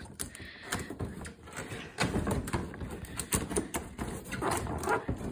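Large cardboard box being opened by hand: irregular scraping, rustling and knocking of the cardboard, busier from about two seconds in.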